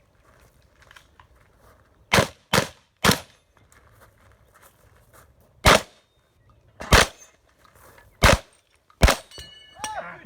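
Seven shotgun shots on an IPSC stage: three in quick succession, then four single shots spaced a second or more apart. A brief ringing tone follows the last shot.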